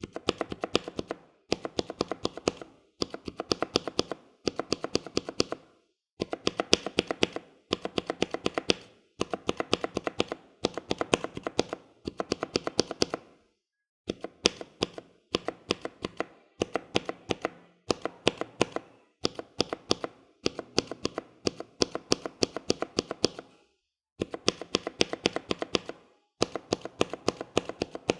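Mechanical keyboard spacebar with a Cherry-profile keycap, a Cherry MX Black switch and an ML V1 stabilizer, pressed in rapid bursts. Each burst is a quick run of sharp clacks lasting about a second, with short pauses between bursts.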